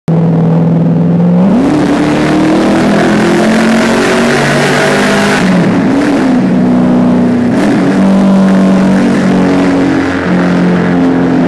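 Car engine running hard under acceleration, heard from inside the cabin. Its note climbs about a second and a half in, then dips and recovers briefly twice, near the middle and a little later, over steady road and wind noise.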